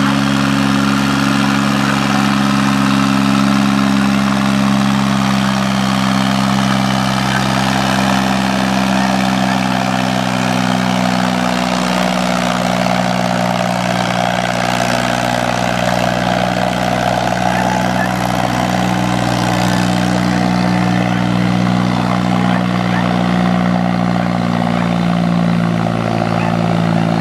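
Small Fendt tractor's diesel engine running steadily under load as it drags a weighted tractor-pulling sled, its pitch holding nearly constant with only slight drifts.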